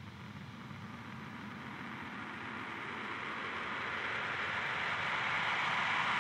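A steady rushing hiss of noise fading in and growing steadily louder, with no clear pitch or beat, opening the electronic track.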